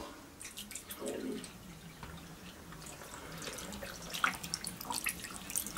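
Vegetable stock poured from a plastic measuring jug into a slow cooker full of chopped vegetables and diced tomatoes: a faint splashing trickle, with small drips and ticks coming more often in the second half.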